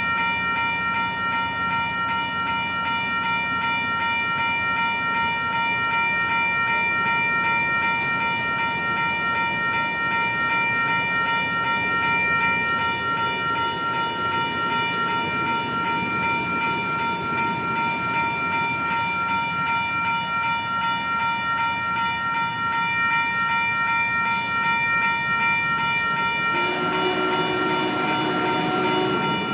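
Union Pacific streamlined passenger cars rolling past over a grade crossing, a steady rumble and clatter of wheels on rail, while the crossing's warning bell rings on without a break. A lower tone joins the rolling noise near the end.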